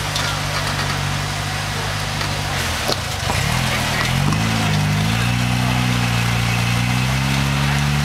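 Toyota pickup rock crawler's engine running at low revs while crawling over rock ledges; its pitch dips about three seconds in, wavers, then picks up and holds a little higher.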